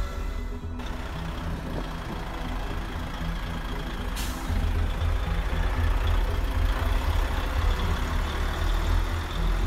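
Truck diesel engine sound from a radio-controlled model Mercedes Arocs 6x6 dump truck, running steadily as a low rumble, with a sharp air-brake hiss about four seconds in.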